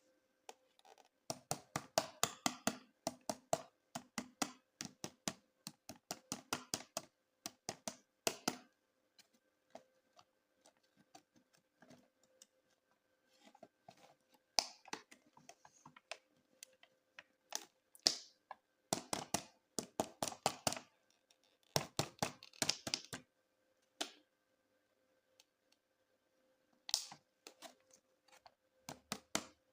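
Hands handling plastic toys and packaging: rapid clicking and tapping in bursts of one to two seconds, with short pauses between, over a faint steady hum.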